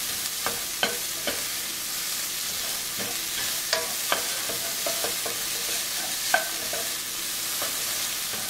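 Onions, garlic, ginger and chili sizzling in oil in a stainless steel frying pan while a spatula stirs them, with a steady frying hiss and irregular scrapes and knocks of the spatula against the pan, some ringing briefly. The sharpest knock comes a little past the middle.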